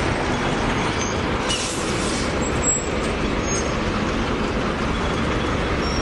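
Double-decker buses and street traffic passing, engines running in a steady rumble, with a brief hiss about a second and a half in.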